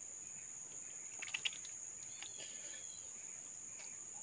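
Steady high-pitched drone of insects, with a couple of short sharp clicks about a second and a half in.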